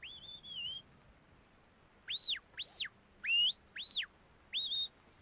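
Sheepdog handler's whistled commands to a working dog: one held note that dips near the end, then, from about two seconds in, a run of five short whistles, each rising and falling in pitch.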